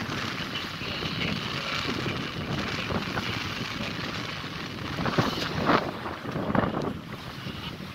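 Wind buffeting the microphone over the rush of choppy water along the hull of a small sailing yacht under sail. The noise swells louder a few times between about five and seven seconds in.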